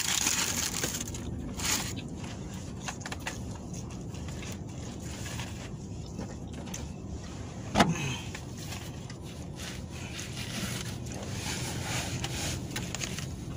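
Eating and handling noises: paper napkin and cardboard food box rustling and crinkling, over a steady low hum. About eight seconds in, one short, loud sound falls quickly in pitch.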